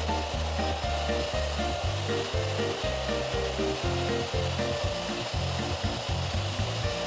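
Background music: a bass line stepping from note to note several times a second, under a higher melody.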